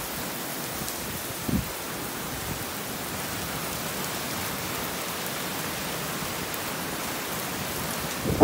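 Heavy thunderstorm downpour: a steady, even hiss of rain pouring down, with one brief low thump about a second and a half in.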